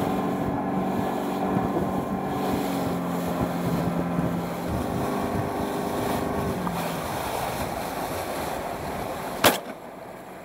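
A small boat's motor running over the wash of water against the hull, its hum fading after about six or seven seconds. Near the end comes a single loud shotgun shot fired at turrs.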